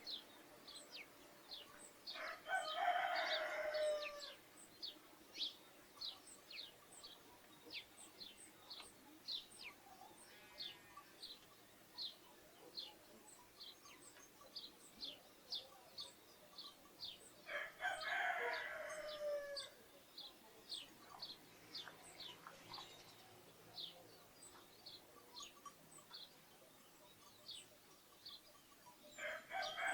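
A rooster crowing three times, each crow about two seconds long and ending in a falling note, the third starting near the end. Underneath, sparrows chirp steadily with short, high, repeated chirps.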